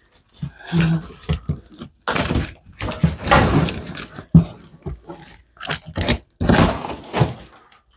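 Large cardboard shipping box being torn and pulled open: irregular scraping and ripping of cardboard, with a few sharp knocks.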